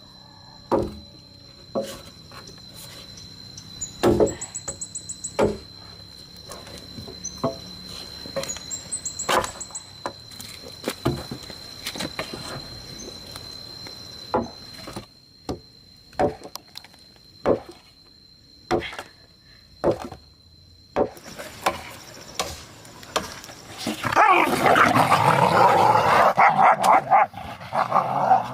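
Sharp, irregular wooden knocks, about one every second or so, of firewood being chopped, over a steady high tone. Near the end, dogs bark loudly for several seconds.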